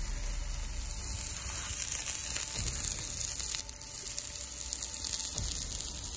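Thick steaks searing on the hot grate of a cast iron charcoal hibachi, with a steady sizzle and fine crackle from the meat and the garlic butter in the skillet beside it.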